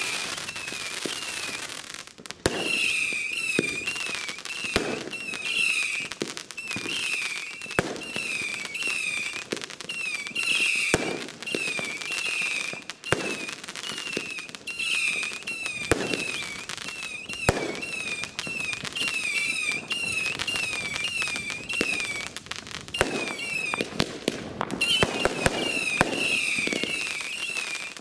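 Firework batteries going off: a near-continuous run of warbling whistles, several a second, over repeated sharp bangs and crackle, busier near the end.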